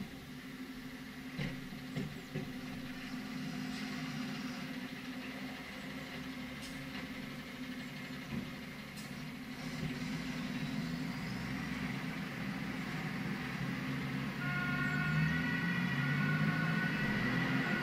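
Fire trucks' diesel engines running as the vehicles pull out of the station and drive off, a steady low rumble that slowly grows louder, with a few short knocks in the first few seconds. About fourteen seconds in, an emergency-vehicle siren starts up faintly.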